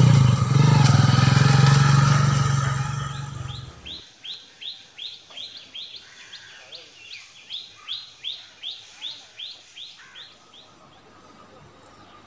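A motorcycle engine running loudly, cutting off suddenly about four seconds in. Then a bird calls in a rapid series of short, high, falling chirps, about two or three a second, for roughly seven seconds.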